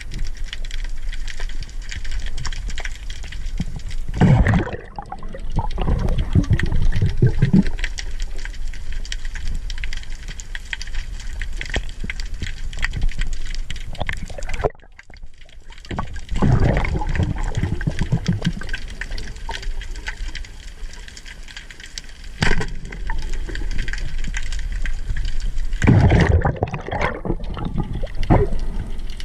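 Underwater ambience heard through a diving camera: a constant fine crackle with several louder surges of rushing, bubbling water.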